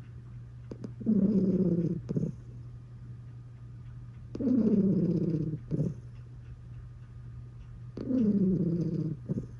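A pet snoring with a purr-like rumble: three snores of about a second each, roughly three and a half seconds apart, each followed by a short puff.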